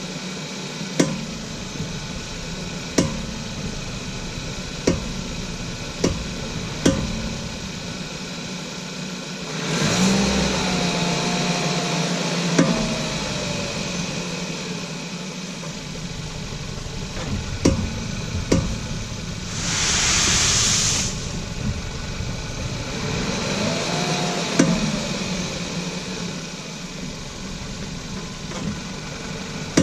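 Volkswagen Golf Mk6 brakes giving a series of sharp clunks at irregular intervals as they are applied, over the steady sound of the idling engine. The clunk appeared with new Brembo pads and discs, and the owner wonders whether missing brake pad retainer clips are the cause.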